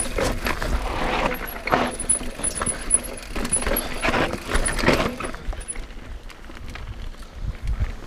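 Mountain bike rattling and clattering over a rough, rocky dirt trail, tyres crunching on dirt and stones, with sharp knocks from bumps. It quietens somewhat in the second half.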